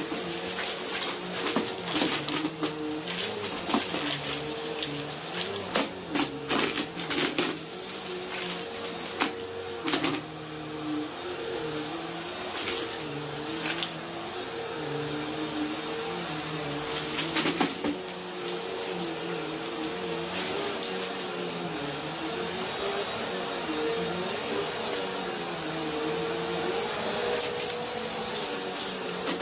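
Bissell Pet Hair Eraser upright vacuum running over a rug. Its motor hum holds steady under a thin high whine, while lower tones waver up and down as the vacuum is pushed back and forth. Sharp crackles come through as it sucks up crunchy debris, thickest in the first half.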